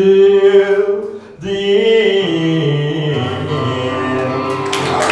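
A solo voice singing a slow gospel song in long held notes, the song's closing phrase. Clapping starts near the end.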